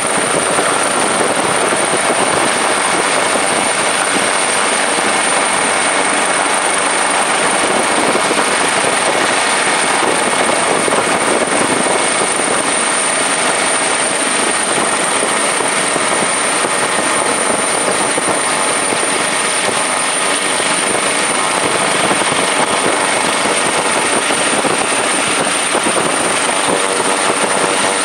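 Helicopter noise heard from on board: a loud, steady rush of engine and rotor noise with a thin, high, steady whine over it.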